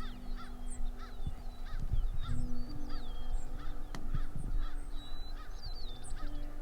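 Geese honking over and over, about two calls a second, with small birds chirping higher up.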